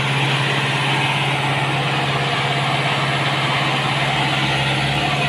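Yanmar three-cylinder diesel engine running at a steady speed, driving a water pump that has primed and is lifting water.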